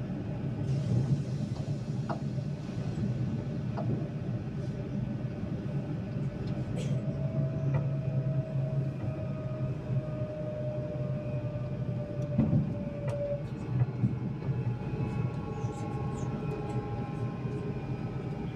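Cabin noise of a city bus on the move: a steady low engine and road rumble. A drivetrain whine slides slowly down in pitch through the middle, and several fainter whining tones come in near the end, with scattered small rattles and clicks.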